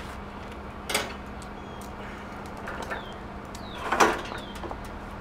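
Metal clunks of a portable two-burner griddle's folding stand being raised and set upright: one clunk about a second in and a louder one about four seconds in, with a few light clicks between.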